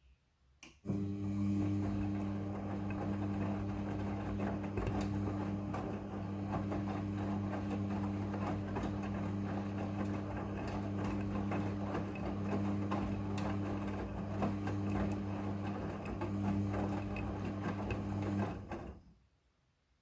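Midea front-loading washing machine's drum turning during the wash: a steady motor hum with clothes and water churning inside. It starts abruptly about a second in and stops shortly before the end, as the drum pauses between turns.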